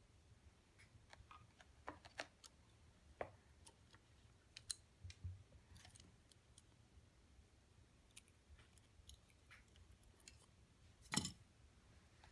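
Scattered soft clicks and taps of a hanging wooden name plate being batted and bitten by cats, with a louder thump near the end.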